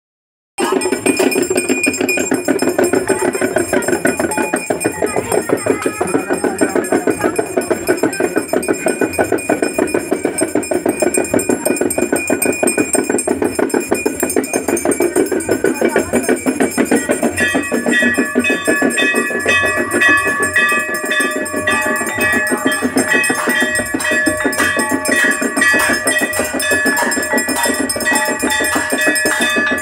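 Ganga aarti bells and drums struck in a fast, steady rhythm. Clear ringing bell tones grow stronger a little past halfway.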